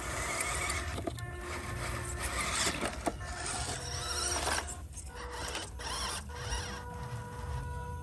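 Toy RC crawler truck's small electric motor and gearbox whirring as it crawls over bricks and sand, with background music.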